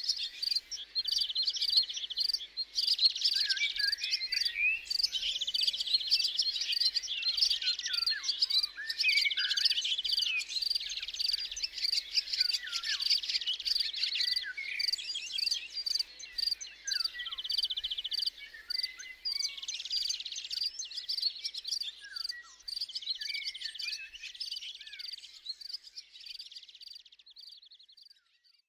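Woodland ambience: insects trilling steadily with small birds chirping over them, fading out near the end.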